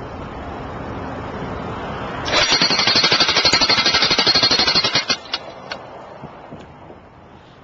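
Electric jackhammer with a driver head hammering an Oz-Post T4-600 steel post anchor into hard ground: a burst of rapid, loud hammering lasting nearly three seconds, starting about two seconds in and cutting off suddenly, followed by a couple of light knocks.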